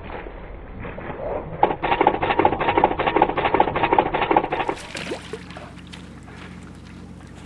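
Brown bears fighting: a loud, rasping, rattling burst of growling and scuffling for about three seconds, ending abruptly. After that comes a quieter stretch with a steady low hum.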